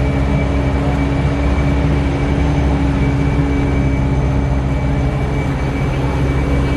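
Small bus's Mitsubishi Canter 125 PS turbodiesel engine running steadily under way, heard from inside the cabin with road noise.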